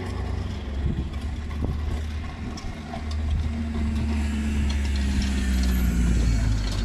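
A van driving past on the street, its low engine rumble growing louder as it approaches and loudest near the end, with a hum that drops slightly in pitch as it goes by.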